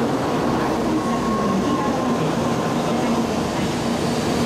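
N700 series Shinkansen cars running past the platform as the train departs and gathers speed: a steady rush of wheel and running noise.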